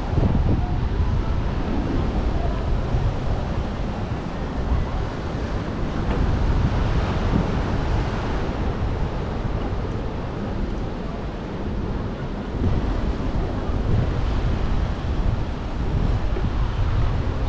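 Wind rumbling on the camera's microphone over the steady wash of ocean surf breaking against the sea wall.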